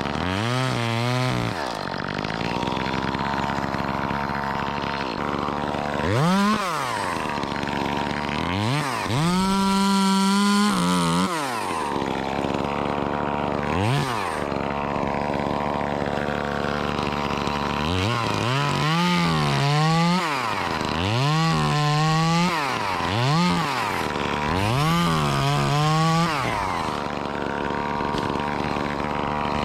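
Gas chainsaw revving up to full throttle in repeated bursts and dropping back to idle between them, with one longer stretch at full throttle about ten seconds in and a quick run of revs in the second half.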